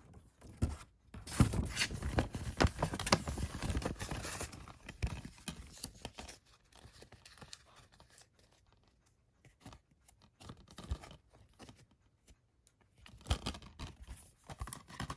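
Plastic Blu-ray cases and packaging being handled: rustling and scraping with scattered clicks. It is busiest in the first few seconds, sparse in the middle, and picks up again near the end.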